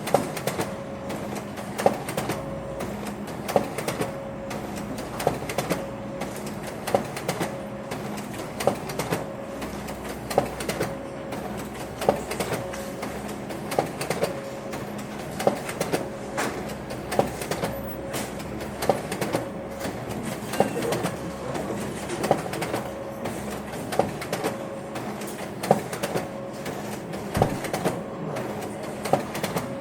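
Office printer running, with a sharp mechanical clack repeating evenly about every second and a half to two seconds over a steady motor hum.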